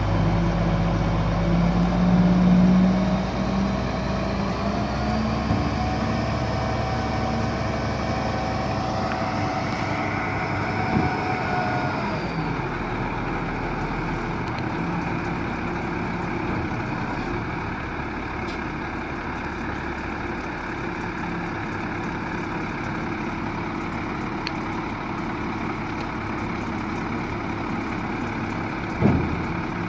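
1999 International 4900 dump truck's DT530 inline-six turbo diesel running at raised speed, its tone climbing slowly, then dropping back to a steady idle about twelve seconds in. A single sharp thump sounds near the end.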